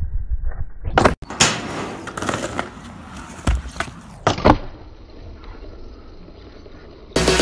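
Skateboard tricks: the board's deck and wheels knock sharply against asphalt several times, loudest about a second in and again about four and a half seconds in, with wheels rolling in between.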